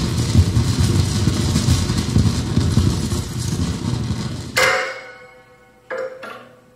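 Improvised electronic noise played on amplified hard drives and other electronics. A dense, rumbling wash of noise cuts off abruptly about four and a half seconds in. A sharp struck sound rings out on a clear pitch and fades, and two more short strikes follow near the end.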